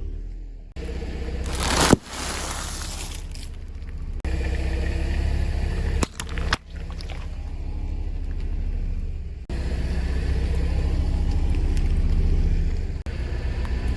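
Car engine rumbling low as the car rolls over objects, with loud crunching about two seconds in and again around six seconds. The rumble cuts in and out abruptly several times.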